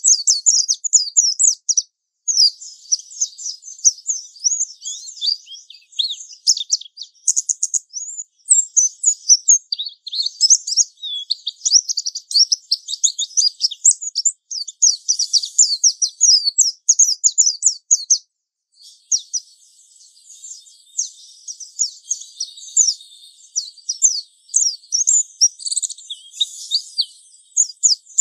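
Japanese white-eye (pleci) singing a long, rapid, high-pitched twittering warble, the continuous 'ngalas' song, with one short pause about two-thirds of the way through.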